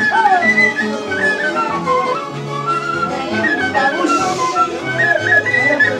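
A band playing Andean folk dance music: a high, wavering melody line over a bass that steps from note to note with a steady dance rhythm.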